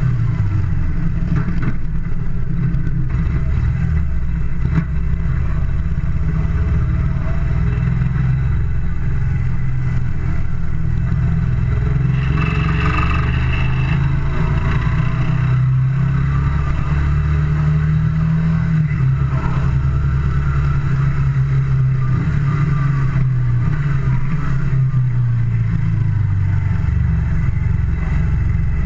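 Moto Guzzi Le Mans II's air-cooled transverse V-twin under way on the road, with the engine note rising and falling as the throttle opens and closes.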